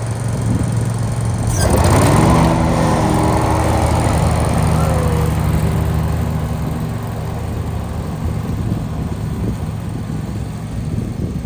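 Lawn mower engine running at raised throttle, on a test run after its belt has been refitted. About a second and a half in it rises in pitch and loudness, then runs on steadily.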